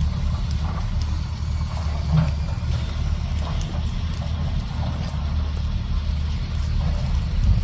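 A steady low rumble, with faint scattered crackles from a small wood fire burning under a hanging watermelon.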